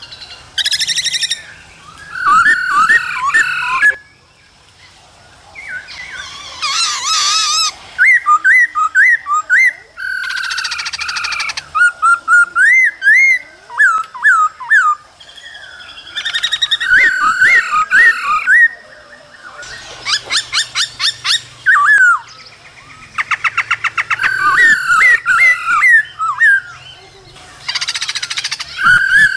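Male black-throated laughingthrush singing loud, varied whistled phrases of quick up-swept notes. These alternate with bouts of fast, buzzy rattling calls, the 'ro' calls of a female laughingthrush used to excite the male into song.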